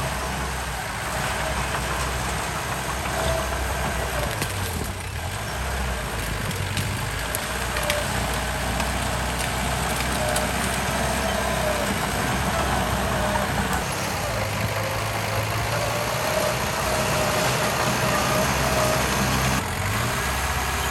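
Heavy construction machine's diesel engine running steadily, its note shifting now and then, with a faint wavering whine over it.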